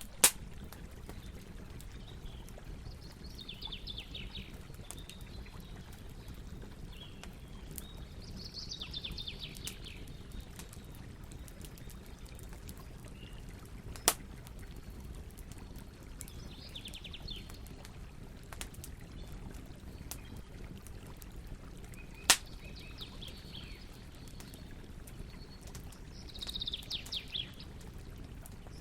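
Campfire burning with a steady low rush and three sharp pops from the wood, the loudest sounds. Small birds sing short, fast trills about five times in the background.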